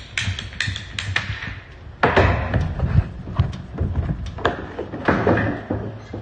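A ratcheting PVC pipe cutter clicks about three times a second as it is squeezed through a plastic pipe. After about two seconds come louder knocks and clatter of the tool and the cut pipe against the plastic tank.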